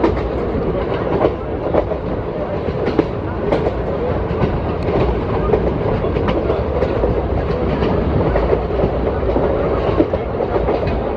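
ICF passenger coach running at speed, heard from onboard: a steady rumble of steel wheels on rail with irregular sharp clacks and knocks as the wheels cross rail joints.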